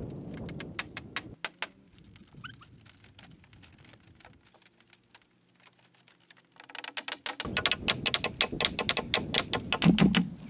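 Rapid clicking and clattering of bamboo being knocked and handled during construction, sparse at first and then dense from about seven seconds in, with a few heavier knocks near the end. A bird chirps briefly about two and a half seconds in.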